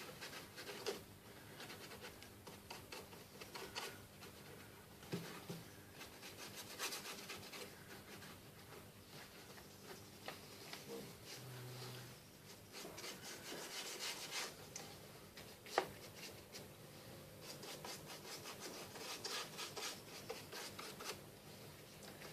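A paintbrush rubbing and scrubbing watered-down paint, faint irregular scratchy strokes, with one sharp click about two-thirds of the way through.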